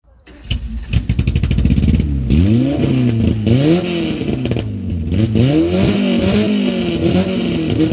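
Peugeot 205 Rallye's engine running with no exhaust fitted: a fast rattling run of firing pulses, then repeated throttle blips that rise and fall in pitch, crackling and popping as the revs drop.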